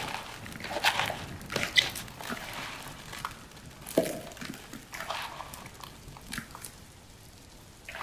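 Irregular scraping, rustling and knocks as a pet monkey drags Thai eggplants across the floor. One sharp knock comes about two seconds in and a heavier thump about four seconds in.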